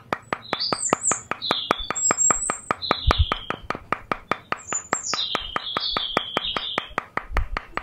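Small birds chirping in short, falling calls over a fast, even ticking of about six clicks a second.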